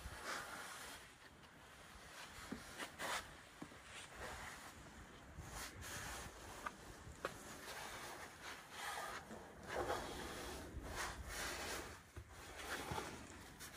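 Faint, irregular rustling and scraping: a nylon down jacket and shoe soles rubbing and shuffling against sandstone walls as a person braces and inches up between them.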